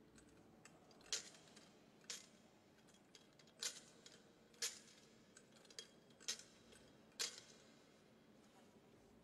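Metal censer and its chains clinking as the thurible is swung, three pairs of sharp clinks about a second apart, each ringing briefly: the incensing of the Gospel book before it is read.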